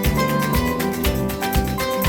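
Background music with a steady beat and plucked guitar notes.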